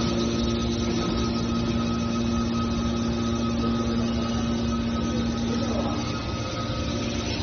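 Small scrap metal baler's hydraulic power unit running with a steady hum; its strongest low tone weakens about six seconds in.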